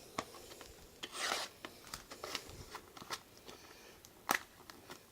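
A mini box of trading cards being handled and opened: cardboard packaging rubbing and rustling, with a few sharp clicks, the loudest a little after four seconds in.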